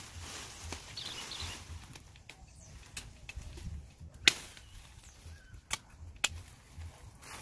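Leafy undergrowth rustling as it is pushed through, then a handful of sharp cracks of branches breaking, the loudest about four seconds in.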